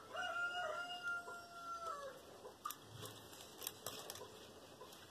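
A single long pitched call, held steady for about two seconds and dropping at the end, faint in the background. It is followed by a few light clicks of acrylic beads as the beadwork is handled.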